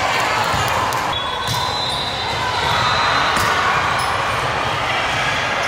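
Indoor volleyball match in a large, echoing gym: steady hall noise of spectators and players, with two sharp smacks of a volleyball being struck, about a second and a half in and again about three and a half seconds in.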